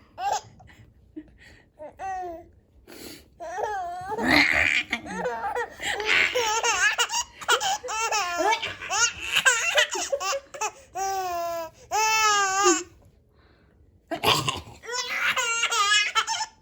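A six-month-old baby laughing in repeated bursts, along with a woman's playful, wavering vocal noises made to amuse the baby; everything stops for about a second near the end.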